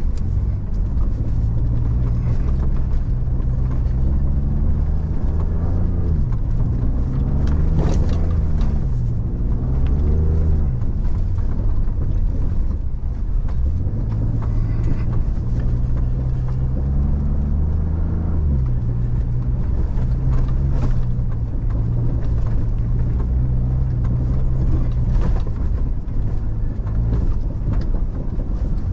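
Pickup truck engine heard from inside the cab while driving over sand dunes, running as a steady low drone whose pitch rises and falls several times with the throttle, most around the middle.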